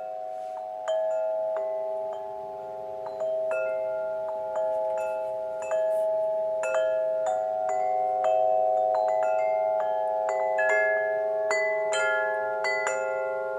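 Wind chime ringing, struck at irregular moments with many overlapping notes, each ringing on long after it is struck.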